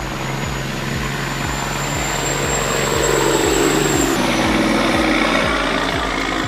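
Heavy vehicle engine running under a loud haze of mechanical noise, with background music keeping a steady thumping beat about three times a second. The engine noise swells about halfway through, and a high whine cuts out just after.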